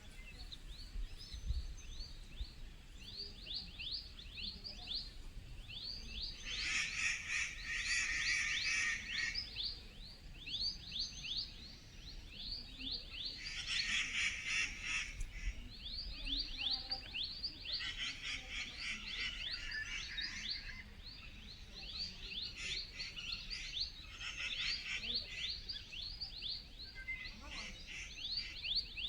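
Forest wildlife chorus: a steady stream of quick, high, falling chirps, repeated several times a second, with buzzy bursts of two to three seconds recurring every few seconds.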